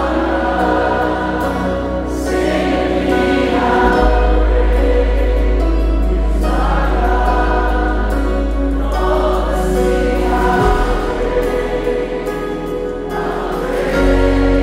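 Live contemporary worship music played loud through an arena sound system, with sustained chords over heavy bass and many voices singing together.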